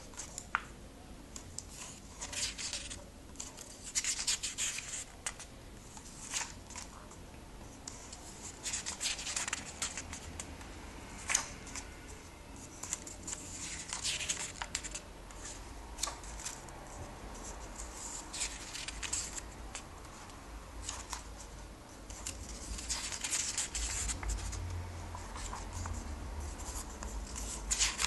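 Paper pages of a comic book being turned by hand: a run of separate rustling swishes at irregular intervals, with a few sharp paper snaps.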